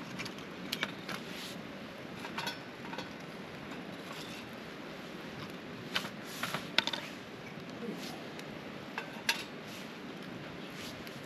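Split kindling sticks knocking and clattering against a small metal wood-burning camp stove as they are fed into its firebox, a few sharp knocks at a time and busiest about six seconds in, over a steady hiss.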